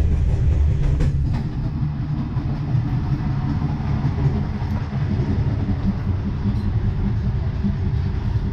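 Steady low rumble of a sleeper-train carriage heard from inside a cabin, with a couple of short knocks about a second in.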